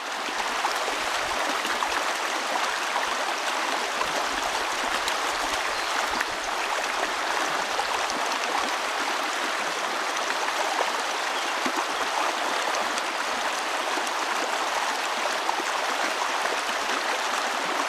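River water flowing steadily around a wading angler: a continuous, even rush of current.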